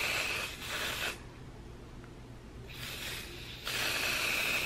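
Aerosol spray-on nail polish can hissing in bursts. A spray stops about a second in, and after a pause of about a second and a half the hissing starts again in two bursts, the second louder and longer.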